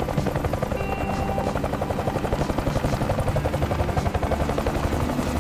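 Steady, rapid chopping pulse, many beats a second, with music under it.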